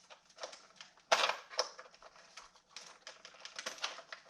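Irregular small clicks and knocks of hard plastic and metal parts being handled on an RC truck chassis, with the loudest knock about a second in.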